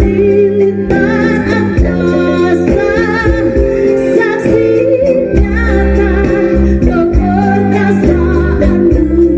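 Voices singing a song with vibrato on held notes, over steady low instrumental accompaniment.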